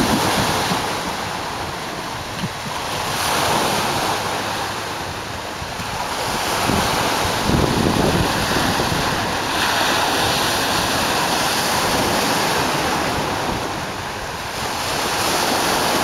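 Lake Ontario waves breaking and washing over concrete slabs and rocks at the shore, the surf swelling and ebbing every few seconds. Wind buffets the microphone, adding a low rumble.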